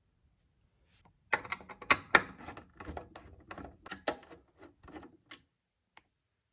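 A run of sharp, irregular clicks and knocks from a screwdriver unscrewing screws in a desktop PC case. It starts about a second in and stops about a second before the end.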